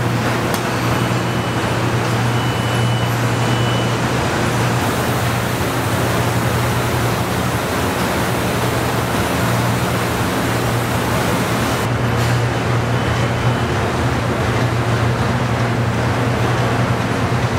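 Steady din of a truck assembly plant floor: machinery noise with a constant low hum and a faint high whine now and then.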